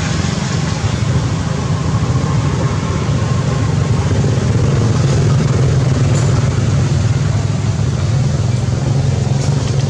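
A steady low engine hum, like a motor vehicle running close by.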